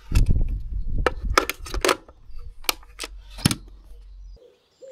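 Hard plastic clicks and snaps as a 13 amp three-pin plug is pushed into an outdoor weatherproof double socket and the hinged plastic lid is shut down over the cable. There are several sharp clicks over about three seconds, with a low rumble under the first ones.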